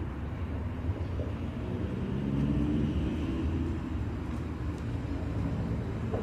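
Street traffic rumble, with a vehicle passing and swelling louder about three seconds in before easing off.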